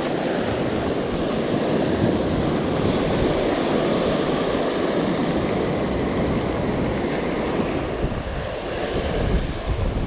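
Small surf breaking and washing up over a pebble beach, a steady wash that swells and eases off a little near the end, with wind buffeting the microphone.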